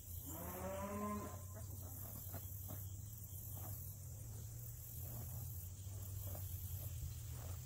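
Soft strokes of a tail brush working through a horse's long tail hair, under a steady high chirring of insects. About half a second in there is a short pitched call that rises in pitch.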